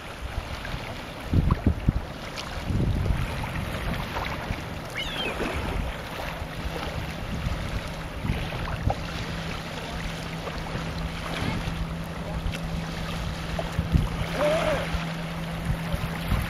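Wind buffeting the microphone over gentle surf, in gusts that are loudest about a second and a half in and again near the end. A steady low hum comes in about four seconds in and holds.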